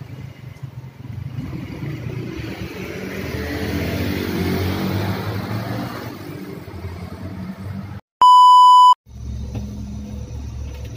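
A vehicle passes on the wet road, its engine and tyre noise swelling and then fading over several seconds. About eight seconds in, a loud electronic beep lasting under a second cuts in. A steady low bus engine drone follows, heard from inside the cabin.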